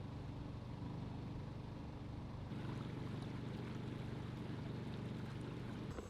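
A boat motor running steadily at constant speed, a low even hum that cuts off suddenly near the end.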